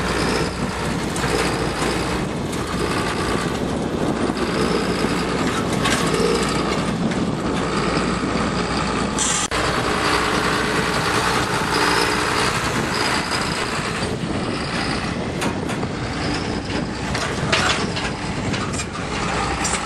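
John Deere tractor's diesel engine running as the tractor and a towed boom sprayer roll over a concrete bump track, with knocks and rattles from the machinery riding over the bumps.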